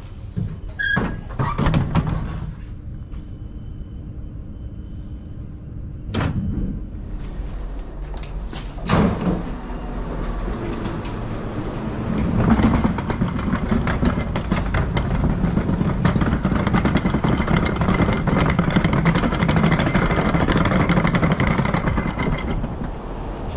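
Pot-wash clatter: a few knocks and scrapes of dishes and a sliding door in the first ten seconds, then a steady rushing noise of water spraying for about ten seconds, stopping shortly before the end.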